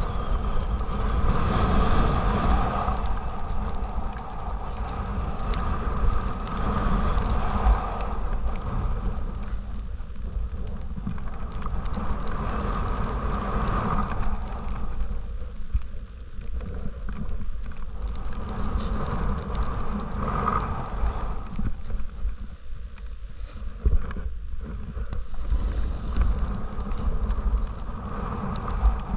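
Snowboard sliding and carving down packed snow: a continuous scraping hiss that rises and falls with the turns. Wind rumbles on the microphone underneath it.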